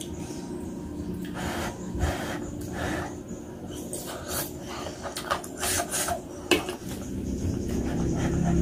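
Close-miked eating sounds: chewing noodles and meatballs, a run of irregular wet rasps and smacks.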